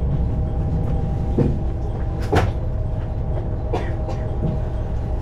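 Diesel railcar's engine running steadily with a low rumble, with several short knocks and clunks in the car, the loudest about halfway through.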